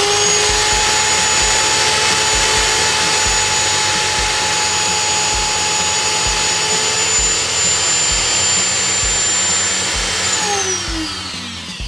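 Corded electric drill, run off a battery through an inverter, spinning at full speed with a steady whine. About ten seconds in it is switched off and winds down, its pitch falling.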